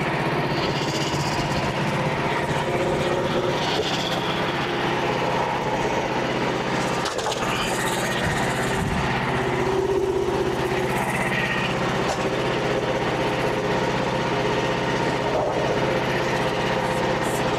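Small gasoline engine of a Frontier OS27 portable band sawmill running steadily at constant speed, driving the band blade.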